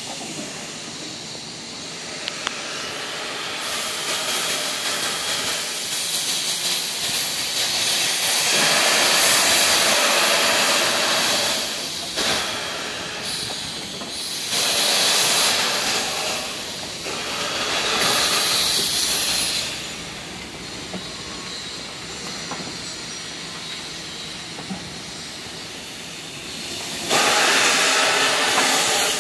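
Durango & Silverton K-36 steam locomotive No. 481 backing slowly, hissing steam steadily with four long, louder blasts of steam, the first about eight seconds in and the last near the end.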